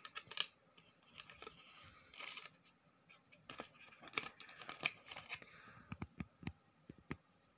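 Flat plastic geometric shapes being handled and sorted by hand: faint, irregular light clicks of plastic pieces knocking together and on a surface, with a few brief rustles.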